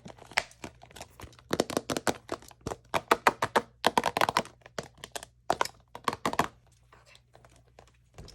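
Homemade slime being squished and stretched by hand: a dense run of crackling clicks and pops that thins out and gets fainter about six and a half seconds in.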